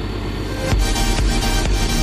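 Background electronic dance music; a heavy kick-drum beat comes in under a second in, at about two beats a second.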